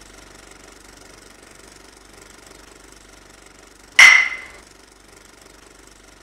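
A steady low droning hum, broken about four seconds in by a single sudden, very loud bang that rings briefly and dies away within half a second.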